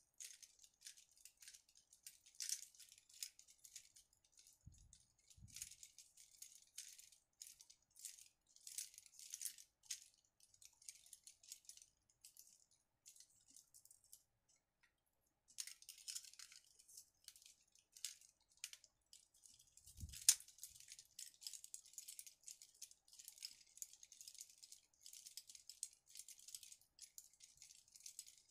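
Faint plastic rustling and rattling as a bouquet of handmade acrylic flowers is handled, stopping briefly in the middle. Two soft knocks come about five seconds in, and a sharper knock about twenty seconds in.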